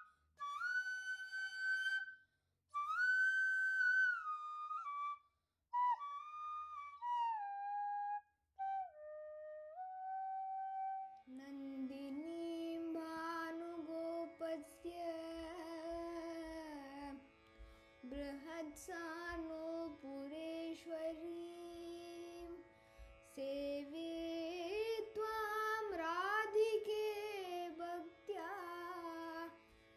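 Carnatic-style instrumental music. A solo flute plays a melody in short phrases with pauses; about eleven seconds in, a fuller accompaniment joins with a steady drone, a winding melody line and soft low beats.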